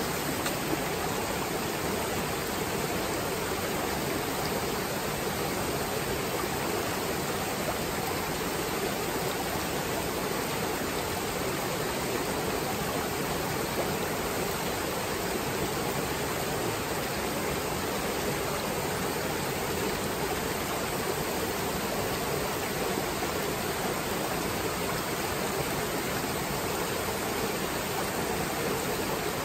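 Small rocky mountain stream running steadily over a low cascade and riffles, an even, unbroken rush of water.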